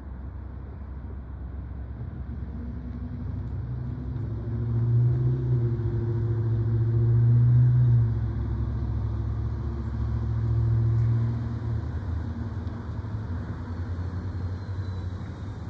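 Low diesel engine drone from the slowly approaching Norfolk Southern locomotive, mixed with cars passing on the adjacent road. It swells from about four seconds in, drops off sharply around eight seconds, swells again briefly near eleven seconds, then eases.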